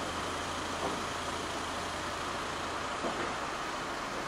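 Steady mechanical background noise with a constant low hum, broken only by a couple of faint clicks about a second in and near three seconds.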